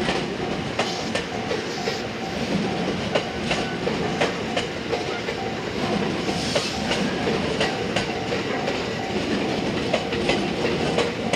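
JR West 227 series 'Red Wing' electric multiple unit running past, a continuous rumble with the wheels clicking over rail joints in a clickety-clack throughout, along with a steady hum.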